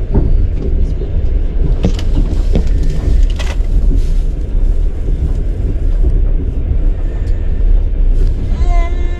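Moving passenger train: a steady low rumble, with a few sharp knocks in the first few seconds.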